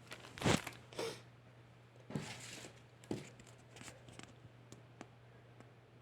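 Packaging rustling and crinkling as items are handled out of a keyboard box. There are a few short bursts, the loudest about half a second in, then softer handling sounds and small ticks, over a faint steady hum.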